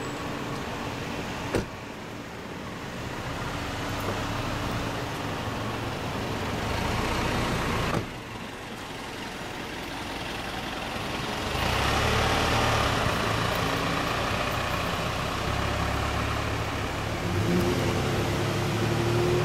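Cars driving slowly past close by, one after another, with low engine hum and tyre noise. The loudest pass comes in the second half, and two brief clicks break the sound earlier on.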